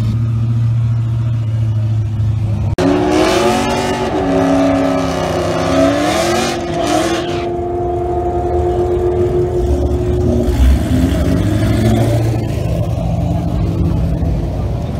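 Car engines idling with a steady low rumble. About three seconds in, the sound switches abruptly to engines revving, pitch rising and falling, then holding a steady pitch for a couple of seconds before settling back to an idling rumble.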